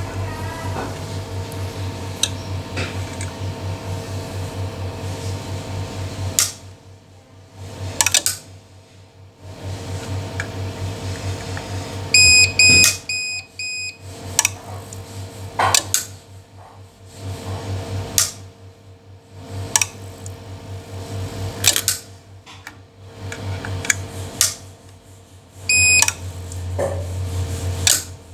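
APC Smart-UPS SURTD online UPS running with a low, pulsing hum that drops away and returns several times, with scattered sharp clicks. Its alarm gives a quick run of short beeps about twelve seconds in and a single beep near the end.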